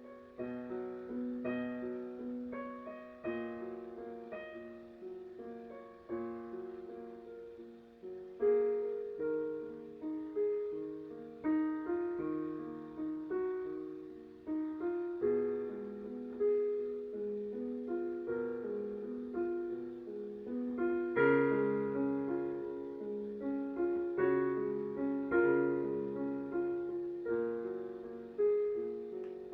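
Solo piano playing slow, mid-register chords and melody, each note struck and left to ring and fade before the next, with a few louder chords about 8, 21 and 25 seconds in.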